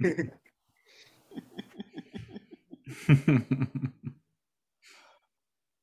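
Laughter in three bouts of quick repeated pulses, the loudest about three seconds in.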